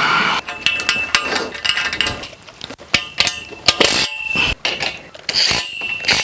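Steel scaffolding pipes and their clamp fittings being handled and fastened: a rapid string of metallic clanks, clicks and rattles, several of them leaving a brief high ringing.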